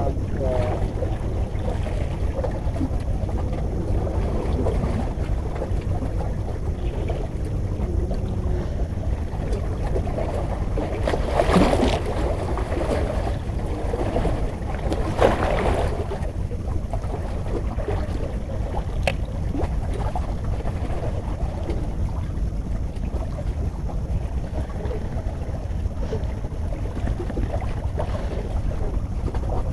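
Wind rumbling steadily on the microphone, with two brief louder gusts or knocks about twelve and fifteen seconds in.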